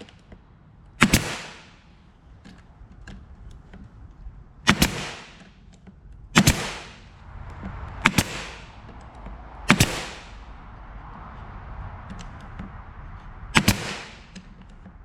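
Brad nailer firing 1-inch brad nails into the slats of a small wooden tabletop: about seven sharp shots a second or several apart, two in quick succession near the end, each trailing off in a short hiss.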